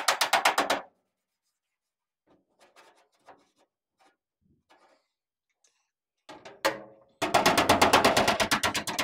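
Smooth-faced body hammer rapidly tapping sheet metal against a dolly held behind a dent in a pickup cab's back panel, about ten light blows a second. One run stops just under a second in and another starts about seven seconds in, with a few faint taps between.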